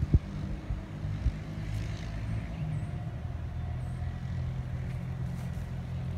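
An engine running steadily at a low, even pitch, likely tree-work equipment working nearby, with a single sharp knock at the very start.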